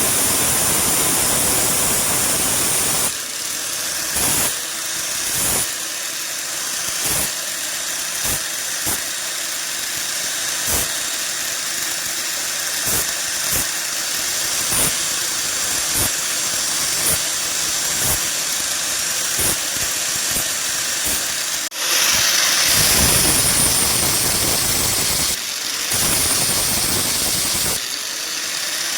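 A metalworking power tool running loudly in two spells, with a pitch that curves as it starts and stops. In the quieter stretch between the spells come many short, light metallic clicks and taps.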